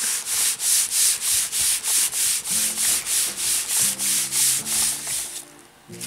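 Hands rubbing a sheet of paper pressed onto a wet plastic bag, in quick even strokes about four a second. The rubbing stops about five and a half seconds in.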